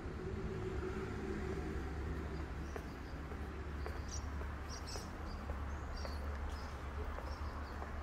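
Outdoor ambience: a steady low rumble of distant traffic, with a few faint, short bird chirps scattered through it.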